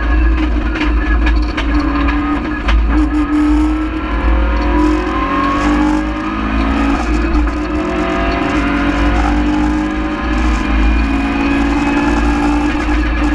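Rally car's engine heard from inside the cabin, driven hard: the revs climb and drop again and again through the gears, over a low rumble of road and tyre noise. Several sharp clicks in the first few seconds.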